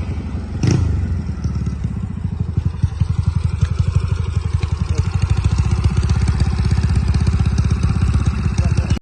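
Yamaha Mio scooter's single-cylinder four-stroke engine, bored up to 200cc, running steadily with an even rapid pulsing. A sharp knock comes about a second in, and the sound cuts off suddenly at the end.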